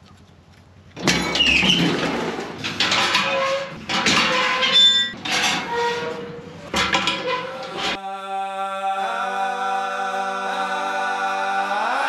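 Loud, irregular clattering and knocking in a livestock truck's metal stock crate while sheep are loaded. About eight seconds in, background music with long held chords takes over.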